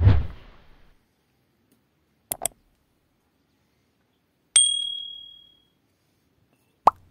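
A string of separate short sound effects with dead silence between: a low thud, two quick clicks, then a bright bell-like ding that rings out for about a second, and a short blip near the end.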